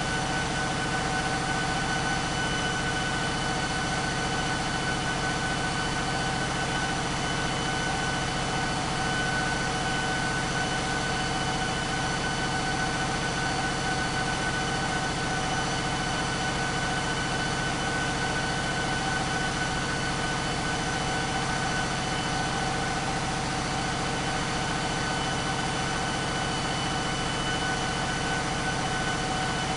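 Caterpillar 3516B V16 diesel engine running steadily on an engine dyno, its deep engine note overlaid by a constant high whine, with no change in speed.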